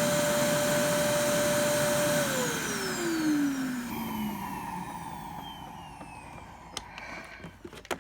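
iRobot Clean Base auto-empty dock's suction motor running steadily as it empties the Roomba i6+'s bin, then shutting off about two seconds in and winding down with a falling whine that fades over the next few seconds. A couple of faint clicks come near the end.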